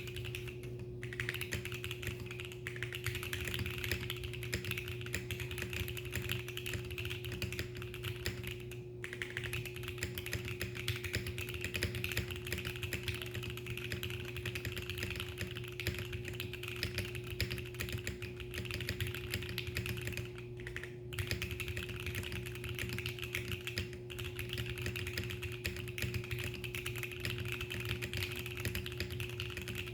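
Steady typing on a mechanical keyboard with Gateron Cap Golden V2 switches on an aluminum plate and Shenpo beige keycaps: a dense run of key clacks with a couple of brief pauses, about nine and twenty-one seconds in. A faint steady hum sits underneath.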